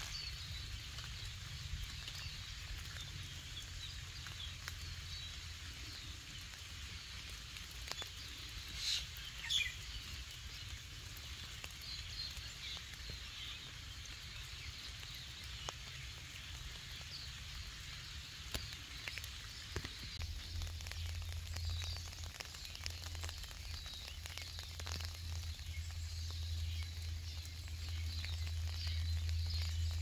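Outdoor birdsong: many small birds chirping and calling throughout, with a louder burst of calls about nine seconds in, over a steady low rumble that grows stronger in the second half.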